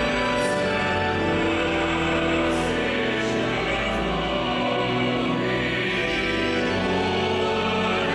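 A choir singing slow, sustained chords over a steady deep bass.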